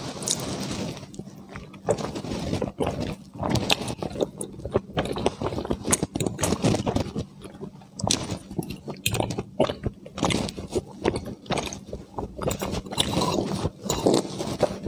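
Close-up eating sounds: a person biting into and chewing a piece of chili-coated food, with many irregular mouth clicks and smacks.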